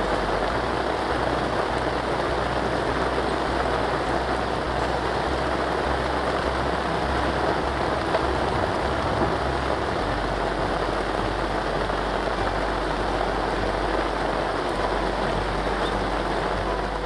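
Heavy downpour of rain, a steady even wash of drops.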